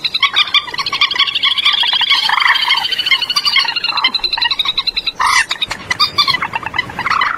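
Common moorhen calls: a long, rapid rattling chatter with shorter, lower croaking calls breaking in about once a second and a louder call about five seconds in. This is a lure recording of the birds.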